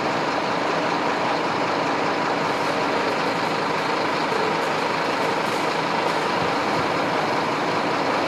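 Fire trucks running at a fire scene: a steady, unbroken engine noise with a constant hiss over it.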